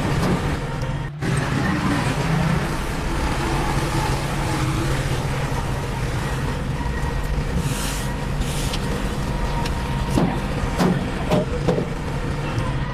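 Heavy diesel engine of construction machinery running steadily, dropping out for an instant about a second in. A short hiss comes about eight seconds in, and a few knocks near the end.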